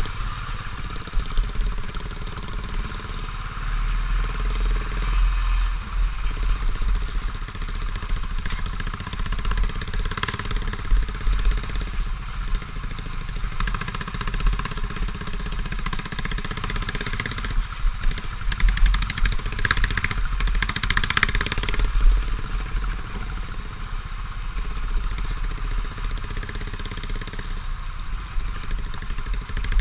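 Royal Enfield motorcycle engine running at low speed, recorded from on board the bike as it rides a rough dirt track, the level rising and falling unevenly over the bumps.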